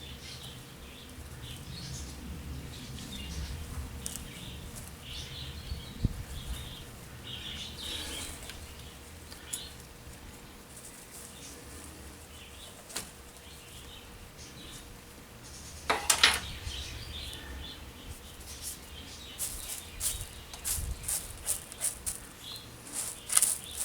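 Small birds chirping faintly, with scattered sharp clicks, a brief louder rustle about two-thirds of the way in, and a run of quick clicks near the end.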